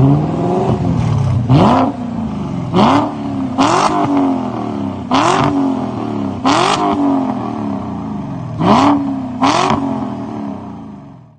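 BMW E39 540i's 4.4-litre V8 with a straight-piped exhaust, revved while stationary. There are about seven sharp throttle blips, each rising in pitch and dropping straight back to idle. The sound fades out near the end.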